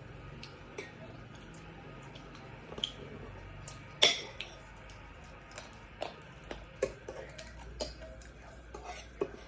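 Eating utensils clinking and tapping against a bowl of bakso aci: scattered light clicks, with one sharp clink about four seconds in.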